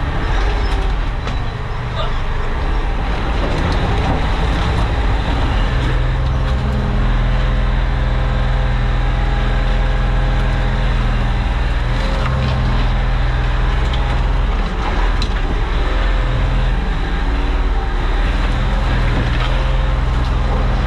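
Sherp ATV's diesel engine heard from inside the cab, running steadily under load as the machine pushes through brush and deep snow, its pitch shifting a few times. Scattered sharp cracks and knocks sound as branches break and strike the cab.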